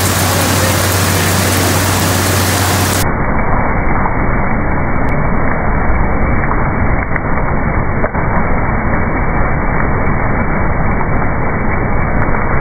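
A food-processing machine running steadily while it discharges a continuous stream of crisp puffed snack pieces, which pour and tumble down a steel chute. The noise is loud and even, with no pauses.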